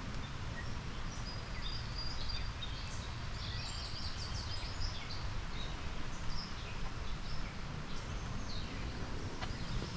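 Small birds chirping in short high calls, busiest a few seconds in, over a steady low rumble of outdoor background noise.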